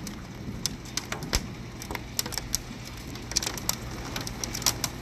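Hail and rain coming down, with irregular sharp clicks of hailstones striking hard surfaces over a steady hiss of rain. The hailstones are pea-sized.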